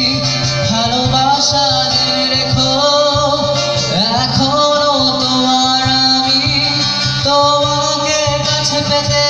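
Live band played through PA loudspeakers: a man singing over amplified electric and acoustic guitars, with a steady low rhythm underneath.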